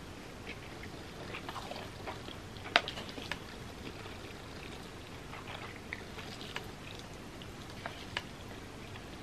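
Close-up eating sounds of a person chewing ramen noodles: scattered small wet mouth clicks over a steady background hiss, with one sharp click about three seconds in.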